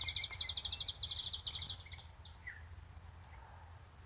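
A small bird's rapid, high-pitched trill of evenly spaced notes that stops about two seconds in, followed by a few single chirps.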